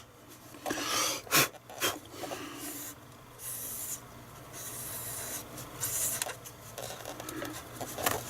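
A brush scrubbing the print head of a Zebra LP2844 thermal printer in short, irregular strokes, cleaning residue off the head.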